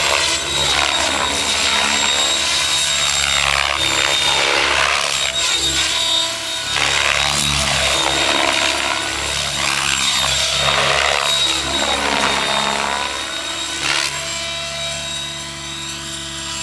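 Mikado Logo 600 radio-controlled helicopter, with an electric Kontronik Pyro motor, flying 3D aerobatics. The rotor blades whoosh over a high steady motor whine, and the pitch sweeps up and down again and again as the helicopter swoops past.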